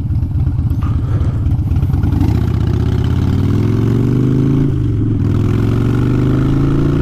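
Harley-Davidson Dyna Fat Bob's Twin Cam 96 V-twin through Vance & Hines Short Shots exhaust, lumping along at low revs, then pulling steadily with its pitch rising as the bike accelerates, with a brief dip about two-thirds through like a gear change.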